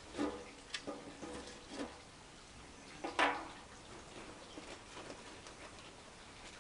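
Dry twigs being handled and snapped while loading a small wood-burning camp stove: a few short cracks and knocks in the first two seconds, and the loudest crack about three seconds in.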